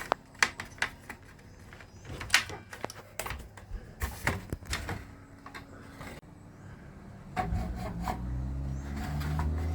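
Small clicks, knocks and rubbing from plastic roof-fan parts and wiring being handled and pressed into place. About seven seconds in, a low steady hum starts up and grows louder.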